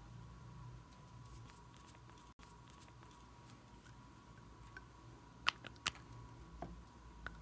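Faint clicks and taps of small plastic cosmetic containers being handled and opened, with two sharper clicks about five and a half seconds in, over a faint steady hum.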